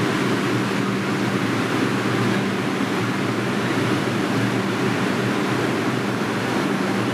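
R142 subway train standing at the platform with its doors open, its equipment running as a steady hum with a few low tones over a broad hiss.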